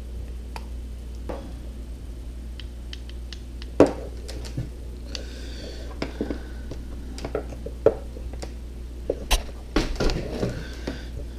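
Scattered light clicks and knocks of a plastic spring clamp and a hot glue gun being handled on a wooden table, with sharper knocks about four and eight seconds in, over a steady low hum.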